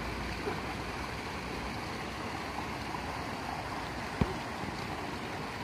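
Steady rush of water running into a stone-lined fishing pond, with one short sharp click about four seconds in.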